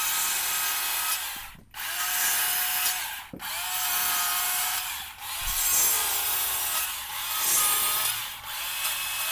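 Battery-powered Stihl chainsaw cutting into a softwood log to round over the corners of a carved pumpkin stem. It runs in short cuts of a second or two, with the motor stopping briefly between them.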